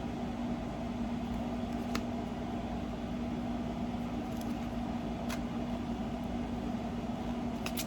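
Steady low mechanical hum with a faint steady tone through it, such as an appliance or fan running in the room, and a few faint clicks as paper cards are handled.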